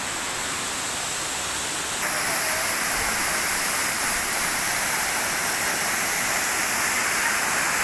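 Waterfall pouring down a rock face onto boulders: a steady rushing of falling water. About two seconds in it becomes abruptly louder and brighter.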